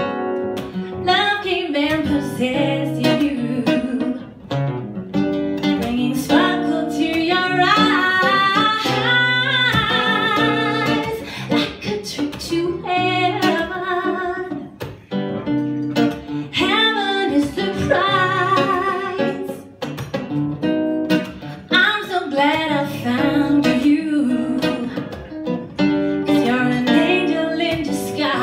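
A woman singing a ballad into a microphone, with vibrato on her held notes, accompanied by a plucked acoustic guitar.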